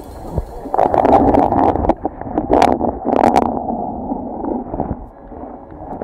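Stream water gurgling and churning, heard muffled through an underwater camera, with a few sharp clicks along the way; it fades about five seconds in.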